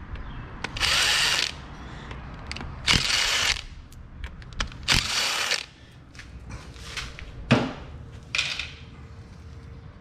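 Cordless drill with a T25 Torx bit spinning out the bolts of an automatic 4x4 front hub in several short bursts, each under a second. A sharp knock about three quarters of the way through is the loudest sound.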